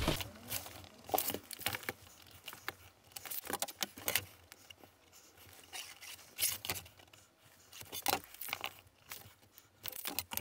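Pencil scratching across an 18 mm MDF sheet as lines are ruled out along a square, in short bursts, with scattered light clicks and knocks from the tape measure and square being handled.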